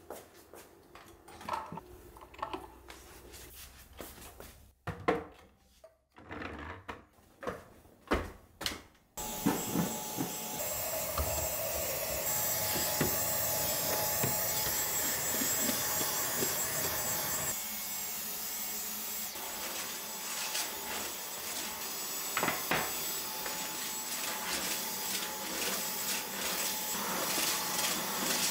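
A few knocks and clicks, then about nine seconds in a Dyson Digital Slim cordless stick vacuum starts and runs steadily with a thin high whine, its combination tool sucking along the top of a refrigerator. Its sound thins a little in the low range about halfway through.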